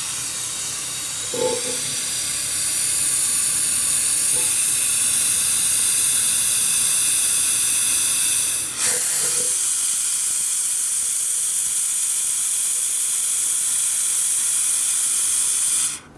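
A loud, steady hiss, strongest in the high register, with a brief dip and a faint squeak about nine seconds in.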